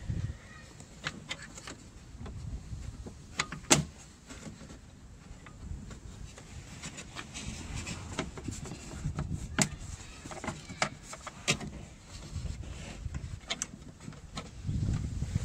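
Scattered clicks and light knocks from hands working on a car door's exterior release cable and latch parts, the sharpest click about four seconds in, over a low uneven rumble.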